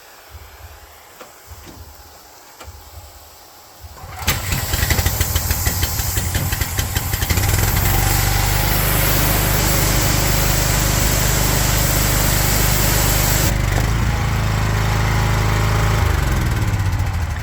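Small engine of a pressure washer being pull-started cold with the choke on. It catches suddenly about four seconds in and runs steadily while the spray gun's trigger is held, with the water jet hissing. About two-thirds of the way through the hiss stops while the engine keeps running, and near the end the engine note drops.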